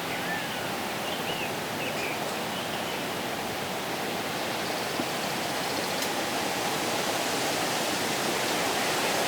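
Steady wind noise, slowly building, with a few faint bird chirps in the first three seconds or so.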